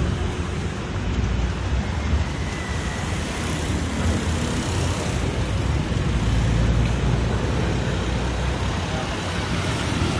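Steady street noise, mostly a low traffic rumble that goes on without a break.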